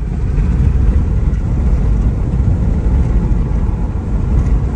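A car on the move, with a loud low rumble of road and engine noise.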